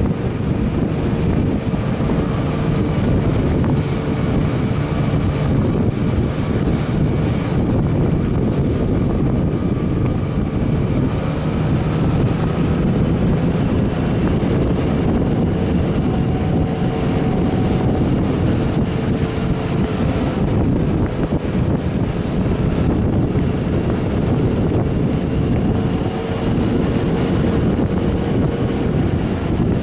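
Wind rushing over an action camera's microphone on a moving motorcycle, with the Yamaha Tracer 900's three-cylinder engine running steadily underneath at an even cruising speed.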